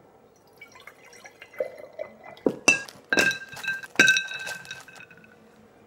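Milk poured into a glass jar, then ice cubes dropped in: several sharp clinks against the glass that ring on, loudest about three and four seconds in.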